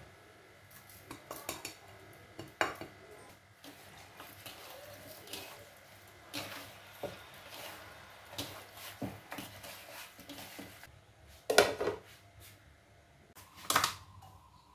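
Kitchen utensils and a bowl clinking and knocking in irregular taps, with two louder clatters near the end.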